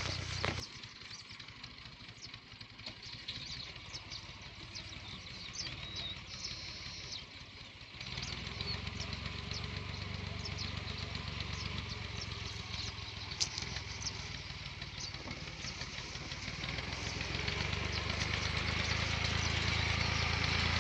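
A tractor engine running steadily while driving a boom sprayer through the crop. Its low hum is faint at first, comes in plainly about eight seconds in, and grows louder toward the end as the tractor comes closer.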